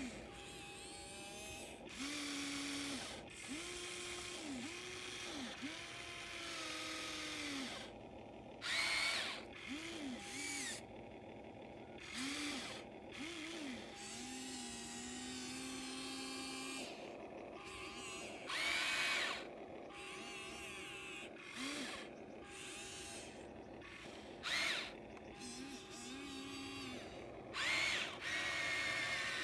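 Radio-controlled model excavator's small electric motors whining in short runs, each rising in pitch as it starts and falling as it stops, as the machine moves. Louder bursts of hissing noise come four times.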